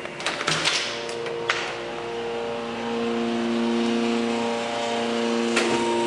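Hydraulic elevator's pump motor running with a steady hum of several tones that starts about a second in and grows a little louder partway through. A few knocks and clicks from the door being opened come first, and a sharp click comes near the end.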